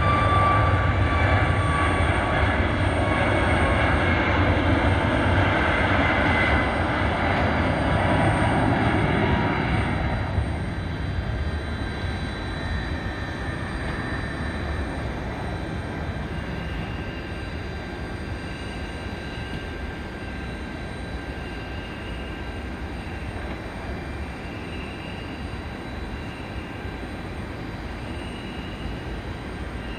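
Boeing 737 MAX 8's twin CFM LEAP-1B turbofans at takeoff power: a loud jet roar with a faint high whine that slides slightly down in the first seconds. The roar drops off about ten seconds in and keeps fading as the airliner climbs away.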